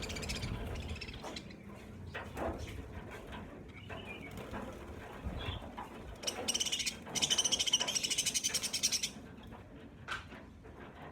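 A flock of budgerigars chattering in a cage, with a loud burst of rapid, close chirping for a couple of seconds past the middle. Scattered light clicks and knocks run alongside.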